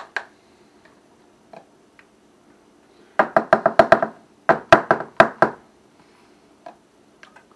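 Two quick runs of sharp knocks, about six in each, as mayonnaise is worked into a plastic measuring cup: the cup or a utensil knocking on the counter or on the cup's rim.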